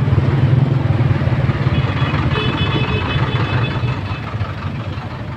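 Motor scooter engine running steadily at low speed in road traffic, a low drone. A brief high whine comes in about two seconds in and lasts about a second and a half.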